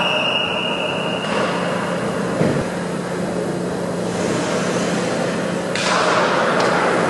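Hockey referee's whistle blowing one steady high note for about a second, the signal that play is stopped. Rink noise follows over a steady low hum, and near the end comes a sudden scrape and clatter of skates and sticks as the faceoff is taken.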